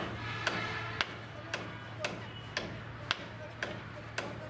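Regular sharp ticking, about two clicks a second and evenly spaced, over a steady low hum.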